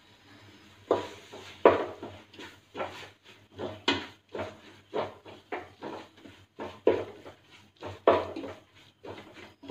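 A spoon scraping and knocking against a metal pot while stirring a thick masala, in irregular strokes about one or two a second.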